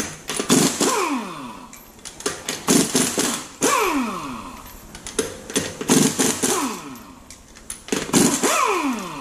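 Pneumatic impact wrench hammering loose the 21 mm lug nuts of a car wheel in several short bursts. Each burst ends in a falling whine as the air motor spins down off the trigger.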